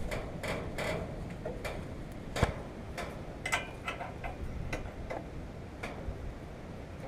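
Irregular clicks and knocks of hand tools being worked on a Volkswagen engine, with one louder knock about two and a half seconds in.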